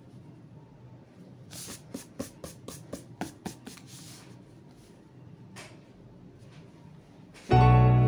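Quick rubbing strokes on drawing paper, about four a second for a couple of seconds, with one more a little later, as the sketch is cleaned up by hand. Near the end, background music with sustained keyboard chords comes in loudly.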